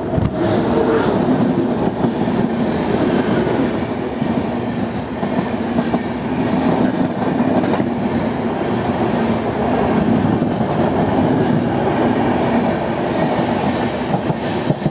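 Blue ICF passenger coach of an express train running steadily at speed: continuous rumble and rattle of the wheels and coach on the track.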